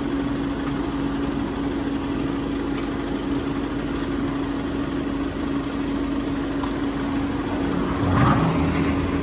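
A vehicle engine idling with a steady, even hum. A brief louder low sound comes near the end.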